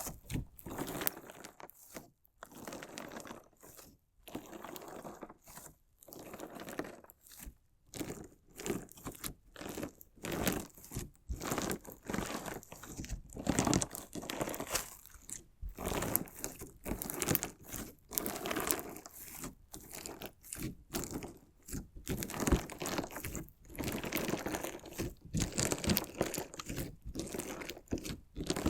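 Crunchy slime mixed with decorative stones being worked by hand, giving irregular runs of crackling, crunching squishes and sharp clicks with short pauses between them.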